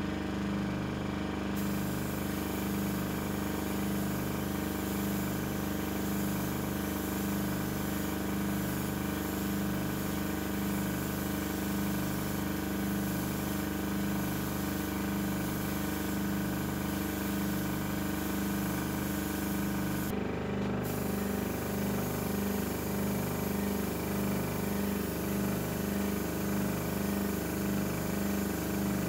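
Air compressor running steadily with an even pulsing hum, under the hiss of a paint spray gun spraying; the hiss drops out briefly about 20 seconds in.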